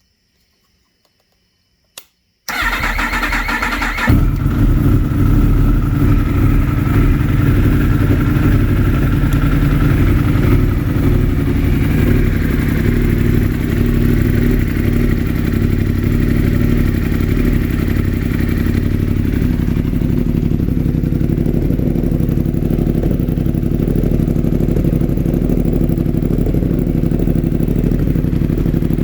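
A click, then a 2016 Yamaha R1's inline-four engine cranked on the electric starter about two and a half seconds in, catching after a second and a half and then idling steadily. The engine has a constant misfire on cylinder 4 that swapping its ignition coil with cylinder 1's has not cured.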